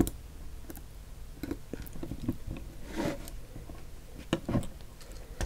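Irregular small clicks and taps of metal tweezers against a plastic model locomotive body as tiny steam pipes are worked into their mounting lugs, with a short rustle of handling about three seconds in.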